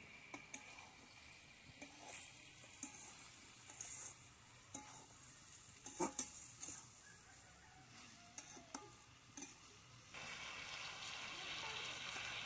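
Faint scattered clicks and knocks, then about ten seconds in a steady sizzling hiss starts: the curry frying in a pan.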